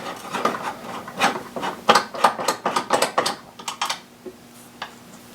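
A hand tool working a 10 mm bolt loose on the secondary air pump bracket: a quick run of irregular metal clicks and scrapes for about the first three and a half seconds, then only a few scattered ticks.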